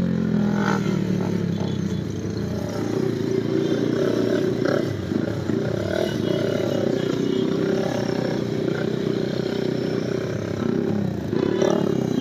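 150cc motorcycle riding at speed, its engine running steadily under rushing wind noise.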